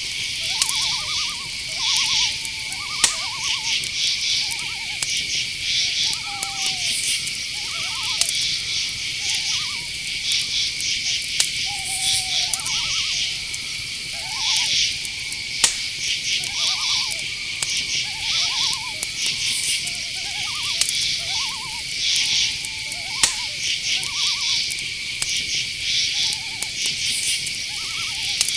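Night-forest chorus of crickets: a continuous high trill under dense, pulsing chirps. Over it an owl gives many short, arched hooting notes at irregular intervals.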